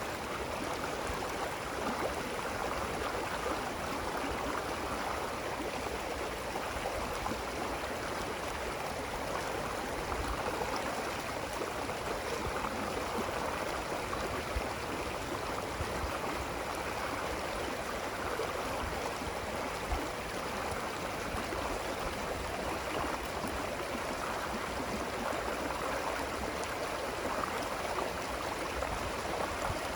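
Running water, a stream flowing steadily with a continuous rushing and gurgling.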